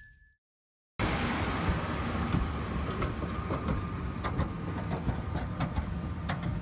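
Soil compaction machine working: a heavy, steady engine rumble with many irregular knocks and clatter. It starts suddenly about a second in, after a brief silence.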